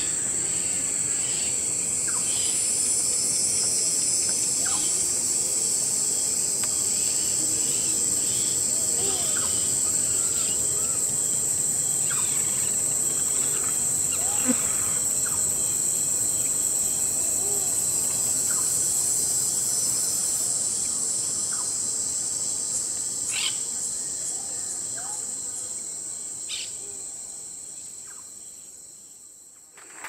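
Recorded sound of untouched forest: a steady, high-pitched insect chorus with scattered short bird calls over it, fading out over the last few seconds.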